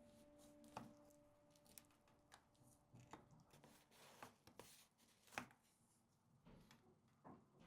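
Near silence with a few faint, scattered taps and clicks, and the tail of a music note fading out in the first second.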